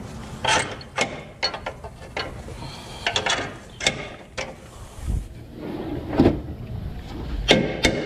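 Metal clinks and knocks as bolts are worked through a truck's steel transmission crossmember by hand, with a few dull thuds partway through. Near the end a quicker run of sharp metallic taps starts, about three or four a second.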